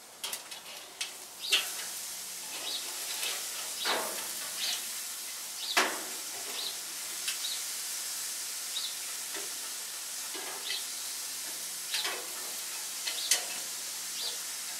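Steak and mango sizzling on a hot grill: a steady hiss with a few sharp pops and crackles.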